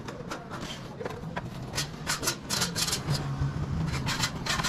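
White roof tiles scraped and knocked against each other and the wooden battens as they are slid and pulled into line, in a quick series of rasping strokes that thickens about two seconds in.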